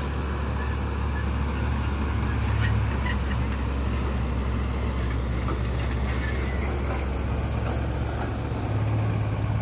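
Diesel engine of a loaded dump truck running as the truck creeps along a dirt track, a steady low drone that swells a little about two seconds in and again near the end.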